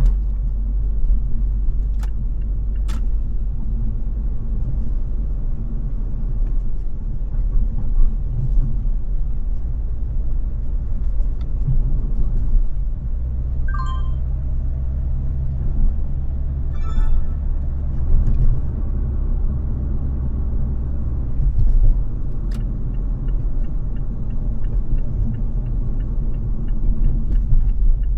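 A car driving in city traffic: a steady, low engine and road rumble. A few sharp clicks come early, short high chirps come in the middle, and faint even ticking comes near the end.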